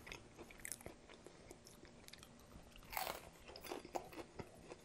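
Chewing a fried chicken tender in crispy batter: soft crunches and clicks of the breading, with one louder crunch about three seconds in.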